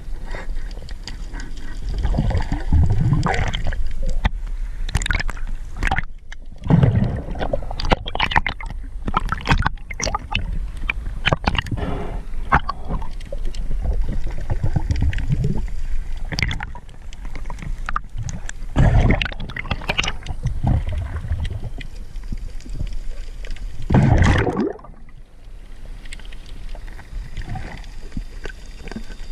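Underwater gurgling and sloshing of water, broken by many sharp clicks and knocks as spearfishing gear and a speared fish are handled.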